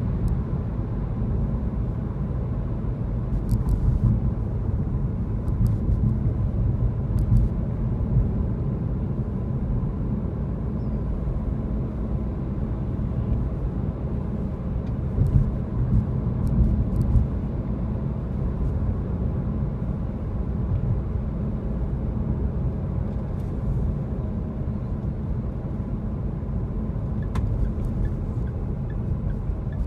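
A car driving along a city street: steady low rumble of engine and tyres on the road, with a few brief swells in loudness.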